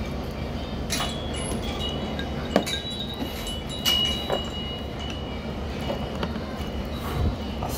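Ramen shop ambience: a steady low hum, with dishes and utensils clinking a few times, sharp single clicks, and a thin high ringing tone that hangs for a few seconds in the first half.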